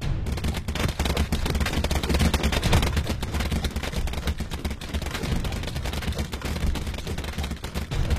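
A speed bag being punched hard and very fast: a dense, continuous rattle of blows with heavy low thuds, starting abruptly.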